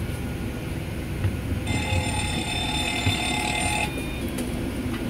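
Boeing 737-700 cockpit warning alarm sounding during the pilots' preflight test of the alarms: a steady multi-tone alarm that comes on a little under two seconds in, holds for about two seconds and cuts off abruptly, over the steady low hum of the cabin.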